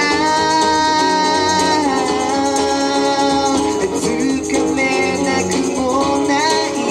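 Live band playing a song on stage: a singer holds long notes over guitar, with a shaker rattling along.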